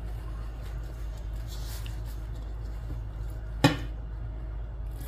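Hands mixing water into bread dough in a bowl, faint and soft, with one sharp knock about three and a half seconds in, over a steady low hum.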